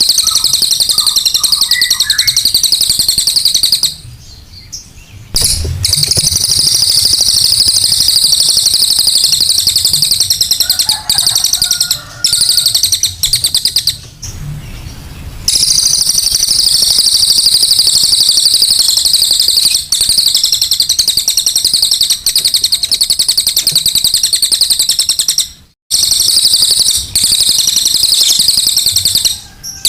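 Cililin bird's rough ('kasaran') song played as a lure: a loud, high, very fast buzzing trill that runs on and on, breaking off briefly three times.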